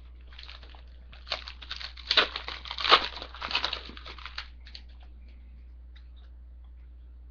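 A Topps Chrome football card pack's wrapper being torn open and crinkled: a rapid crackling that starts about a second in and dies away about four and a half seconds in, with a few faint ticks after.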